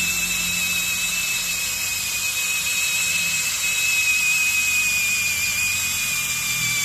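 20 V brushless cordless drill spinning a long spiral soil auger bit at steady speed with a continuous high whine. The bit is running free, unloaded, as it is drawn up out of the soil.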